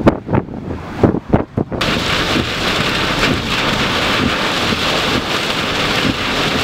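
Gusts of wind buffeting the microphone, then, about two seconds in, a sudden switch to a steady, loud hiss of heavy rain and wind pelting the vehicle, driven by the storm's strong rear-flank downdraft winds.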